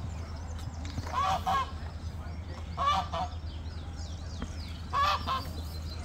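Domestic geese honking in three short bursts of a few honks each, roughly two seconds apart, with faint high chirping between them.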